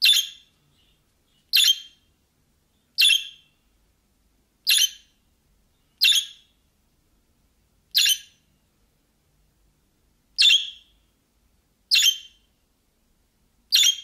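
Budgerigar giving short, sharp single calls, nine of them, spaced one to two seconds apart.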